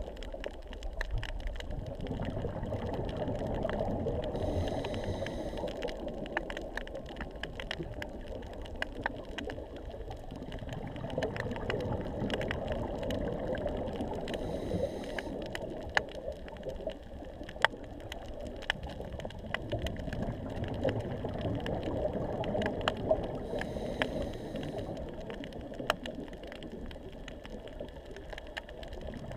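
Underwater sound on a coral reef: a steady low water rush with many scattered sharp clicks and crackles, and three short hissy bursts about ten seconds apart.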